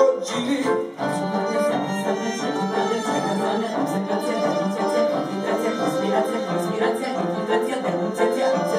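Live band playing an instrumental interlude of a cabaret song, with a violin prominent.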